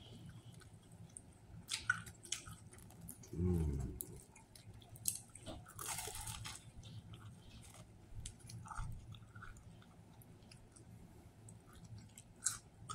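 A person biting into and chewing a Subway sub sandwich: wet chewing with scattered small clicks, and a longer bite into the roll about six seconds in. A short low hum from the eater's throat about three and a half seconds in.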